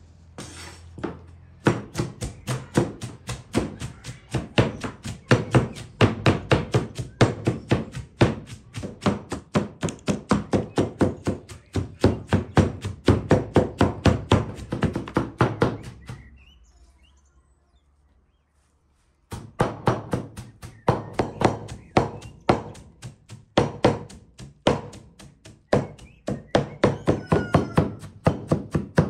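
Large crescent-bladed, two-handled chopping knife striking a round wooden board as it minces peppers, tomatoes and onions: rapid, steady chops, several a second. The chopping breaks off for a few seconds just past halfway, then resumes.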